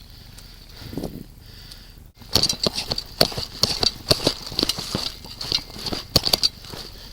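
Quick footsteps crunching through dry leaves and brush, starting about two seconds in, irregular at several steps a second.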